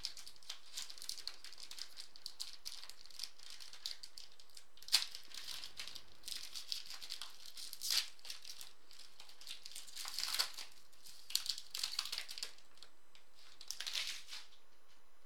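Foil trading-card pack wrapper crinkling and crackling as it is torn open and peeled back by hand, with several louder crinkles along the way, the last near the end.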